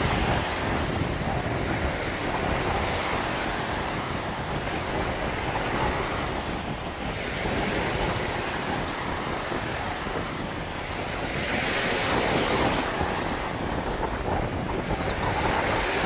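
Small ocean surf breaking and washing up the sand, the hiss swelling and ebbing with each wave every few seconds, with wind buffeting the microphone.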